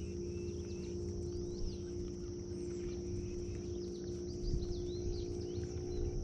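Birds chirping and singing in short, quick notes, over a steady low hum and a steady high-pitched drone.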